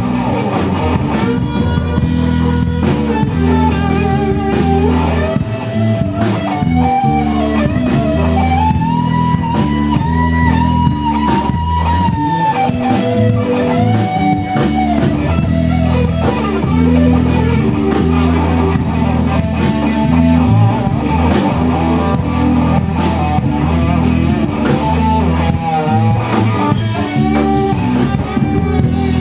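Live rock trio playing an instrumental passage: an electric guitar solos with bent notes and a long held note about ten seconds in, over bass and a drum kit keeping a steady beat.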